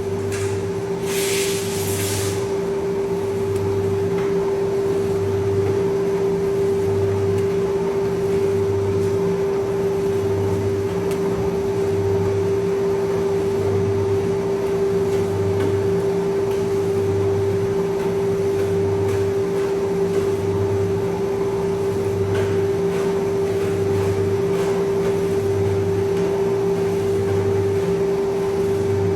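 Electric meat slicer running: a steady motor hum with a low throb repeating about every second and a quarter. A short hiss comes about a second in.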